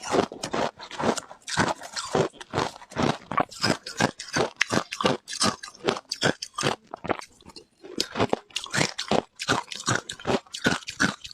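Person biting and chewing ice: a steady run of crisp crunches, about two to three a second.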